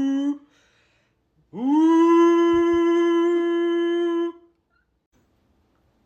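A person's voice holding a long 'ooh' note. It swoops up at the onset about 1.5 s in, then holds one steady pitch for nearly three seconds. The tail of an earlier held note cuts off just after the start.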